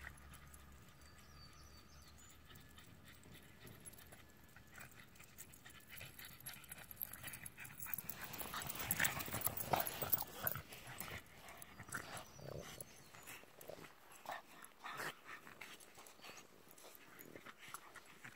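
Boston terriers at play, with a dog's short, quick sounds close to the microphone, thickest about halfway through.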